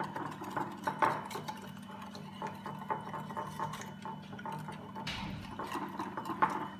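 Wire whisk beating a runny yogurt, oil and vinegar marinade in a ceramic baking dish: wet, uneven stirring with small taps of the wires against the dish.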